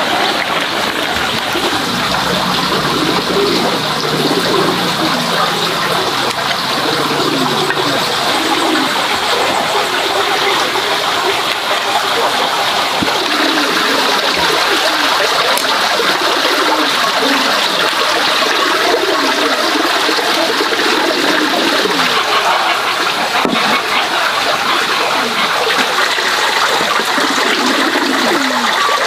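Running water, a steady rush and gurgle.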